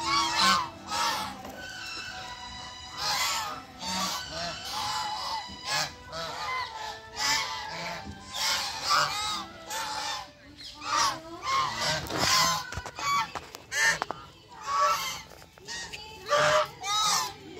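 A flock of white domestic geese honking: short repeated calls, often several overlapping, coming in bursts every second or so.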